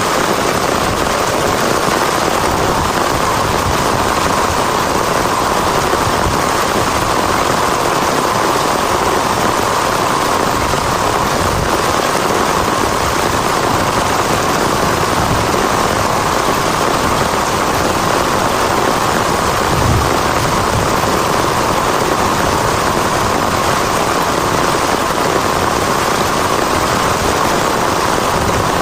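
Heavy rain falling steadily, a dense, even hiss without a break.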